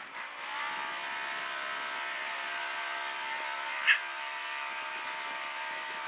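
Polaris RZR side-by-side engine running at a steady, unchanging pitch, heard on board. A brief sharp high chirp stands out about four seconds in.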